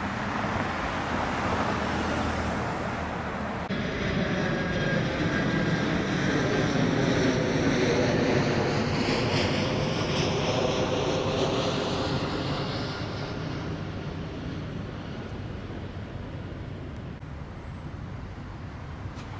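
Jet airliner passing overhead: its engine noise swells to a peak about eight seconds in, then slowly fades, with a high whine that slides in pitch.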